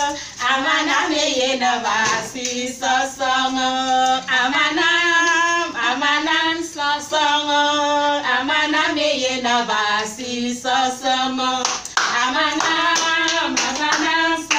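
Women singing a lively song together in held, melodic phrases, with rhythmic hand clapping.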